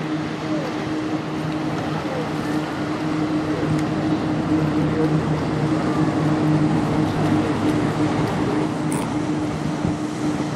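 A 652-ft bulk carrier passing close by: its engine drones with a steady low hum at one pitch, over the rush of its bow wave and choppy water, growing slightly louder midway.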